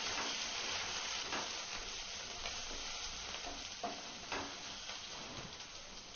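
Sliced onions, green chillies, coriander and curry leaves sizzling in hot oil in a nonstick kadai, stirred with a wooden spatula that scrapes and knocks against the pan a few times.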